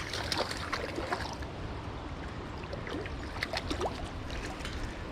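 River water rushing, with many short splashes scattered through it as a hooked smallmouth bass thrashes at the surface in the current.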